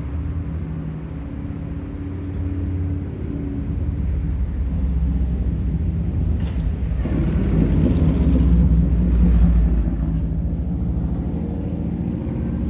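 Car engine and road noise, a steady low hum that swells about halfway through and eases off again near the end.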